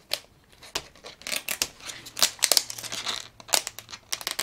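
Plastic packaging of Rainbocorns Sparkle Heart Surprise eggs crinkling and crackling as it is picked at and peeled off by hand, in short irregular snaps and rustles.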